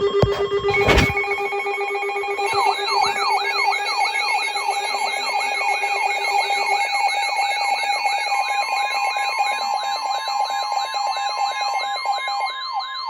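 Several electronic alert alarms sounding together: steady tones, a sharp click about a second in, then a fast repeating rising siren-like sweep, a little over twice a second, joined past halfway by another steady tone.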